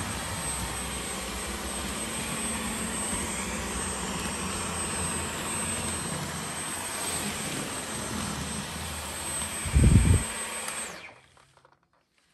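Dyson V15 Detect cordless stick vacuum running on a hard floor: a steady rushing hiss with a thin high whine. A loud low thump comes near the end, then the vacuum's sound stops.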